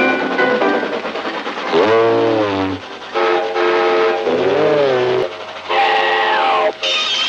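Hand-made train whistle sound effect: several held whistle chords, two of which sag in pitch and rise back, over a steady hiss.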